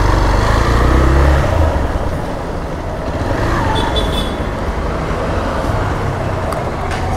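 Street traffic noise: road vehicles running, with a heavy low rumble in the first second or so.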